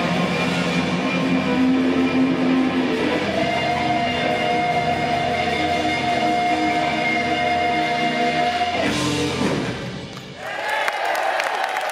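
A rock band with electric guitar holds a final sustained chord, which cuts off about nine seconds in. The audience then starts cheering and applauding near the end.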